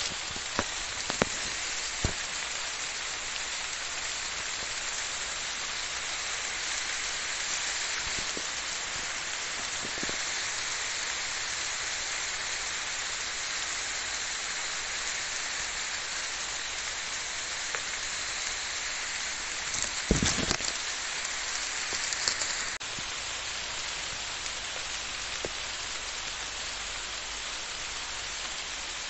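Steady rain falling on tree leaves and open ground, a heavy, even hiss, with a few sharp drop clicks near the start and a brief louder clatter about twenty seconds in.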